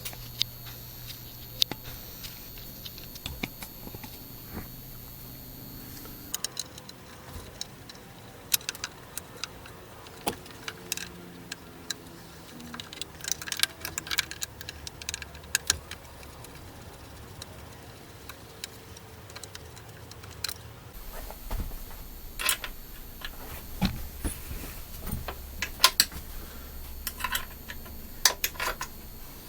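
Scattered metallic clicks and clinks of hand tools and small parts being handled while a chainsaw is taken apart on a workbench, over a faint steady hum.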